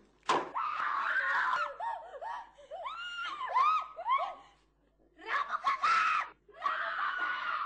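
Voices screaming in panic: a sharp knock, then a long scream, then a run of short yells that rise and fall in pitch. After a brief pause, the screaming starts again.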